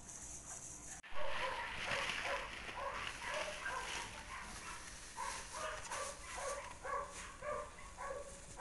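Dog yipping and whimpering, short high calls repeated about twice a second.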